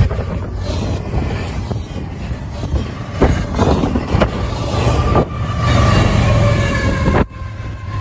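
Double-stack intermodal well cars rolling past at close range: a steady rumble of steel wheels on rail with a thin squeal and a few sharp clanks about a second apart. The sound breaks off abruptly near the end.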